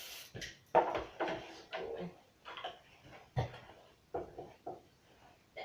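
Baking pan and kitchen utensils being handled: a series of irregular knocks and clinks, about a dozen in five seconds.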